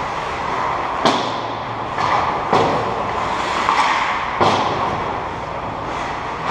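Ice hockey play: ice skate blades scraping and carving on the ice, with three sharp clacks of hockey sticks and puck, about a second in, at about two and a half seconds, and just past four seconds.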